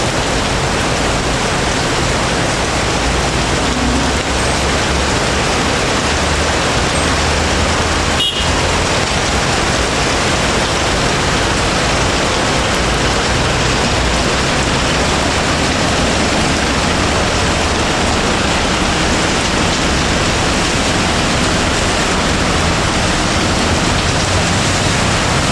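Heavy rain pouring steadily, with a low rumble underneath and a single sharp click about eight seconds in.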